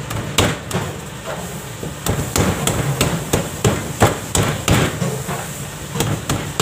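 Repeated sharp knocks, about three a second, as hands press bread dough down into a metal loaf tin and the tin knocks against the metal worktop.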